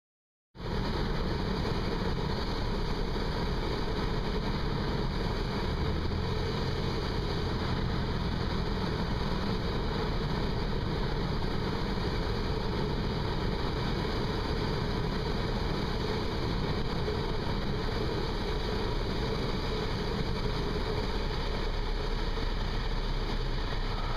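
Cessna 172's piston engine and propeller droning steadily, starting abruptly about half a second in and cutting off abruptly at the end.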